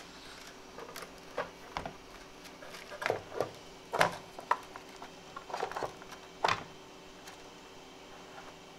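Scattered plastic clicks and knocks of a filament spool being handled and fitted onto a 3D printer's spool holder, the loudest about four seconds in and again near six and a half seconds, over a faint steady hum.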